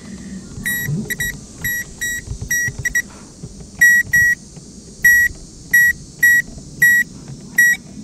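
Electronic circuit tester giving about a dozen short, high beeps at uneven spacing, some in quick pairs, as its probe is touched to fuse test points with the ignition on. Each beep signals power at that point.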